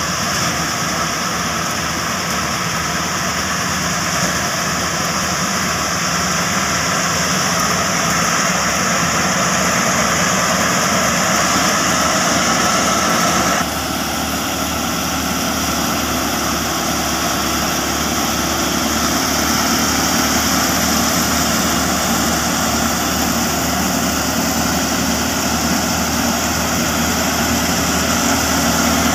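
Super Fine thresher driven by a New Holland 480 tractor, running steadily under load while threshing, with the tractor's engine working beneath the machine's dense whirring. The sound shifts abruptly about halfway through.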